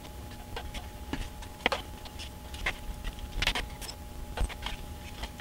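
Light, irregular clicks and taps from small wooden model-kit parts and a glue bottle being handled on a cutting mat, over a faint steady hum.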